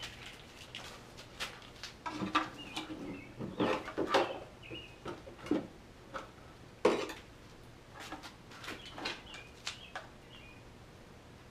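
Scattered light clicks, taps and rattles of a Jeep Wrangler JK's plastic tail light housing and wiring connectors being handled at the open tail light opening.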